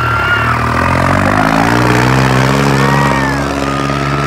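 New Holland 3630 tractor's diesel engine revving hard under load as it drags a tavia along a dirt track. Its pitch climbs over the first second and a half, then holds high and steady.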